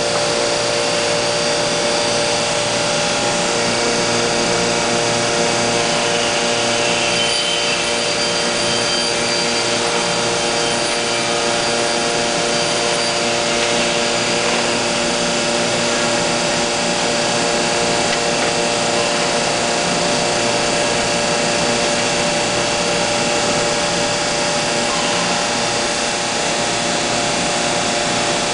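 Woodworking CNC machining centre running while it machines a solid wood door: a steady, loud whine of the spindle with a noisy rush like a vacuum, keeping several steady tones throughout.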